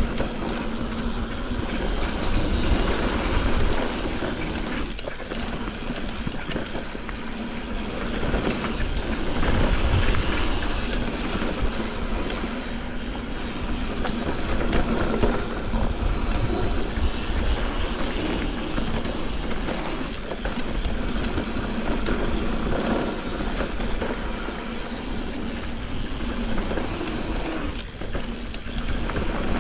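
Mountain bike rolling down a dirt trail: a steady rush of tyre and bike rattle with wind rumbling on the microphone, swelling and easing every few seconds.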